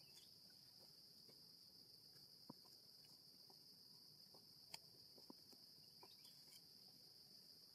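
A steady, high-pitched drone of insects in the forest, faint, with a few soft clicks scattered through it.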